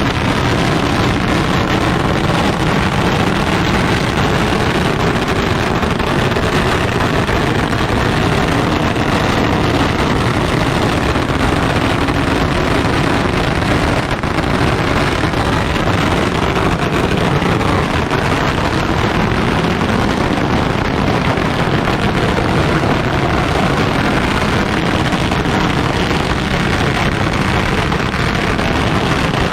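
A pagara, a very long string of Chinese firecrackers, going off continuously: a dense, unbroken barrage of bangs at a steady, loud level.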